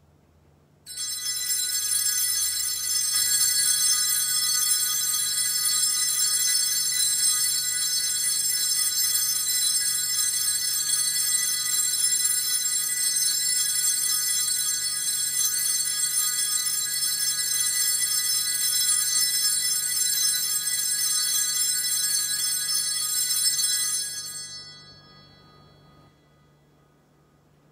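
Altar bells rung without pause while the priest blesses the people with the monstrance at Benediction: a bright, steady ringing that starts about a second in and dies away near the end.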